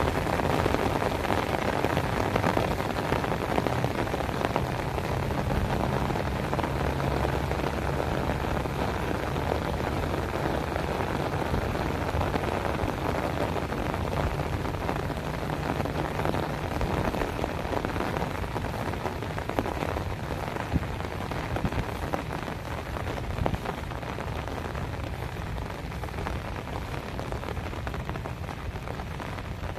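Heavy rain falling steadily: a dense hiss of drops with many close individual drop hits. A low rumble sits underneath for the first half, and the rain eases slightly near the end.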